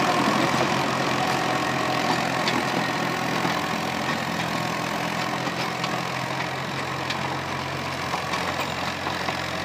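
Old Universal tractor's diesel engine running steadily under load while it drives a rotavator slowly through the soil. It fades slightly as the tractor moves away.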